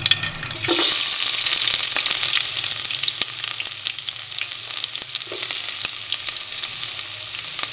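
Chopped onions hitting hot cooking oil in an aluminium pot: a sudden loud sizzle with crackling the moment they go in. It then settles into a steadier, slightly quieter sizzle as they fry.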